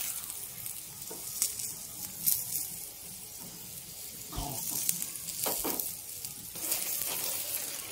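Aloo paratha frying in oil on a hot tawa, sizzling steadily, with a few light knocks of the steel spatula and oil spoon against it.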